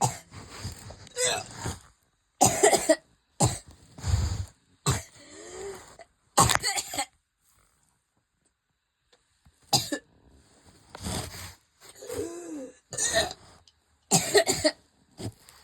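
A person in a coughing fit: repeated coughs in clusters, with gasping breaths between them and a pause of about two seconds near the middle.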